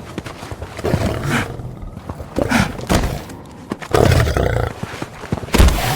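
Lion vocalising in several loud, rough outbursts, about a second, two and a half, four and nearly six seconds in.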